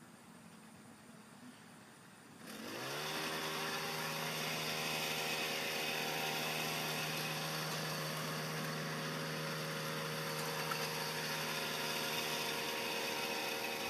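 A small engine starts up about two and a half seconds in, its pitch rising for a moment before it settles and runs loud and steady at a constant speed.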